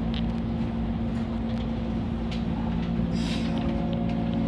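Steady low hum and rumble inside a JR West 103 series 3500-subseries electric train car, with a brief hiss of air about three seconds in.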